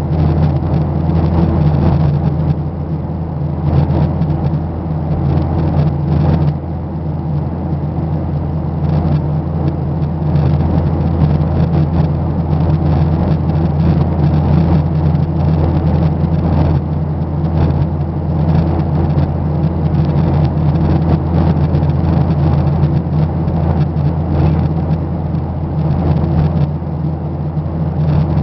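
Steady, loud engine drone heard inside an airliner's cabin, with a constant low hum.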